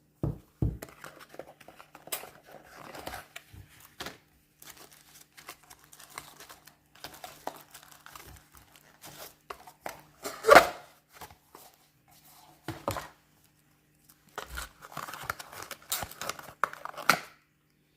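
Plastic packaging crinkling and tearing while a boxed remote and its accessories are unpacked, with scattered small clicks and rustles; the loudest rustle comes a little past halfway.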